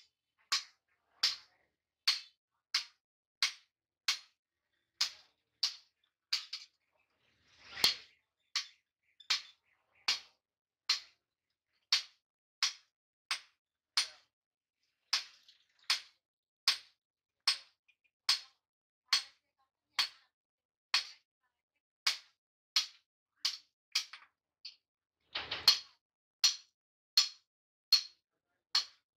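Hand hammer striking red-hot steel on a steel anvil block while a chopper blade is forged: sharp, ringing metal-on-metal blows in a steady rhythm of about three every two seconds. Twice, about eight seconds in and near the end, the rhythm pauses for a heavier, duller knock.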